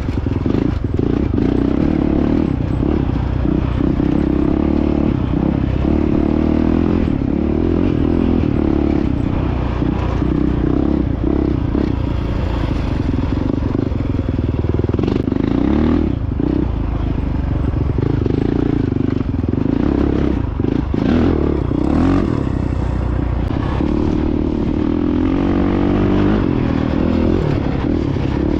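2022 Honda CRF450X's 450 cc single-cylinder four-stroke engine running on a dirt trail, its pitch rising and falling with the throttle, with clatter from the bike over rough ground.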